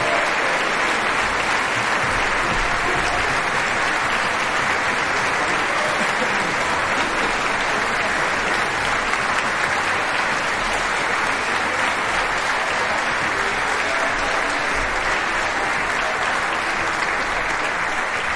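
Theatre audience applauding: dense, even clapping that holds steady throughout.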